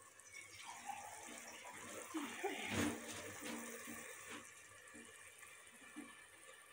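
Tomato masala sizzling in an aluminium pressure cooker as it is stirred with a silicone spatula, with one sharp knock against the pot about three seconds in and a few lighter taps after.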